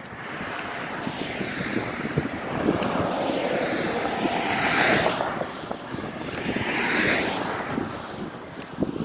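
Traffic passing on a highway: tyre and engine noise swells and fades as vehicles go by, with two loud pass-bys about five and seven seconds in, one of them a pickup truck. Wind buffets the microphone throughout.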